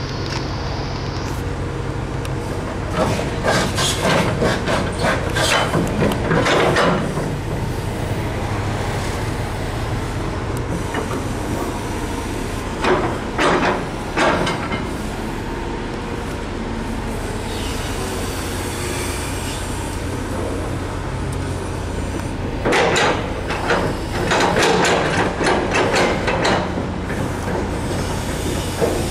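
Daewoo S300LC-V tracked excavator working: its diesel engine runs steadily under hydraulic load, while metal parts clank and knock in three bursts a few seconds long as the bucket digs and the arm moves.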